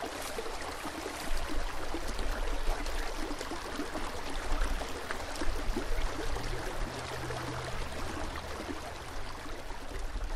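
Shallow rocky creek running steadily over stones, with a low rumble underneath.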